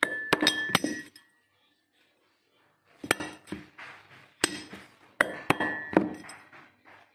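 Several groups of sharp metallic clinks and taps with a short ring: metal tapping and knocking on the brass bush retainer and cast aluminium end shield of a Lawkim ductable AC fan motor, while its new bushes are being fitted.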